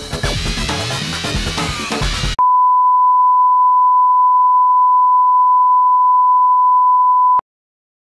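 Music that cuts off about two and a half seconds in, followed by a steady 1 kHz test tone, louder than the music, held for about five seconds before it stops abruptly.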